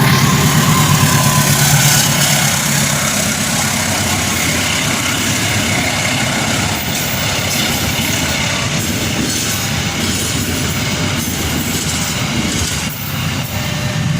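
A train passing close by at speed: a loud, steady rush of wheels on the rails. A tone falls in pitch over the first second or two, and a string of sharp clacks comes through in the second half.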